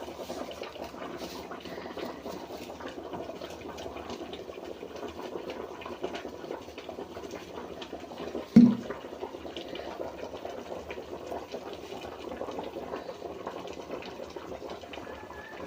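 A pot of chicken stew bubbling steadily as it cooks, with one sharp loud knock a little over halfway through.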